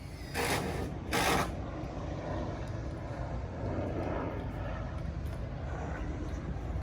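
Dock construction work noise: two short, loud hissing bursts about half a second and a second in, then a steady motor-like rumble with faint work sounds over it.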